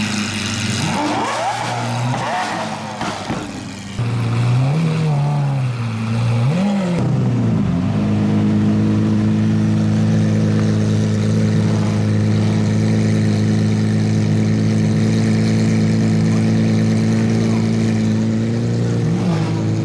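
Lamborghini Aventador's 6.5-litre V12 blipped several times, each rev rising and falling quickly, then idling steadily, with one short blip near the end.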